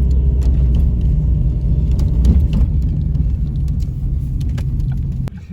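Road and engine noise heard inside a moving car's cabin: a steady low rumble that drops off suddenly near the end.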